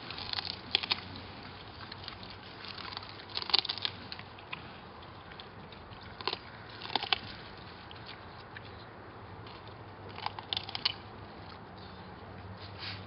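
Staffordshire bull terriers biting into cauliflower leaves and stalks, with sharp crunches and snaps coming in four short clusters a few seconds apart.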